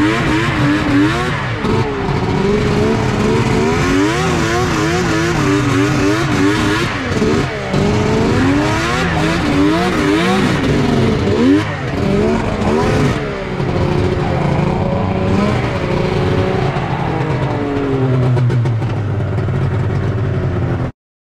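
Two-stroke snowmobile engine under way, revving up and down constantly so that its pitch keeps rising and falling. The sound cuts off abruptly near the end.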